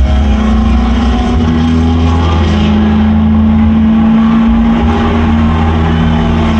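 Film soundtrack of a Ford GT40 race car's V8 running flat out, a steady, loud engine note that steps up slightly in pitch about two seconds in. It is played back through a home cinema's speakers and subwoofers, with heavy bass.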